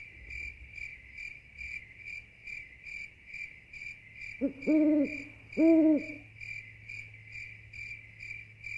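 Crickets chirping in a steady rhythm, a little over two chirps a second, with an owl hooting twice about halfway through; the two hoots are the loudest sounds. A faint low hum runs underneath.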